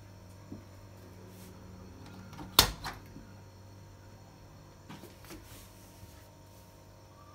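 Beko BKY 2317 B front-loading washing machine door being opened: a sharp click of the door catch about two and a half seconds in, then a few lighter clicks and knocks as the door swings wide.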